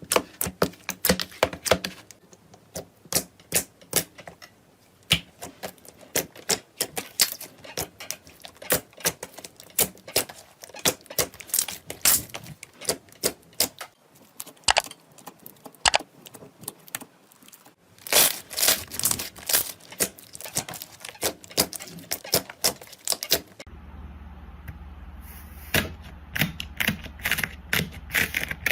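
Slime being squeezed and pressed, making rapid, irregular crackling clicks and pops. About three-quarters of the way through, a steady low hum comes in under the clicking.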